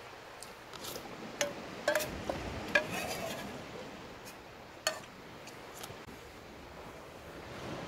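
Eating utensils clinking against a metal pot: about five sharp, ringing clinks between about one and a half and five seconds in.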